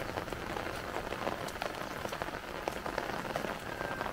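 Steady rain falling on wet ground, puddles and plants, with many separate drop hits sounding as sharp ticks.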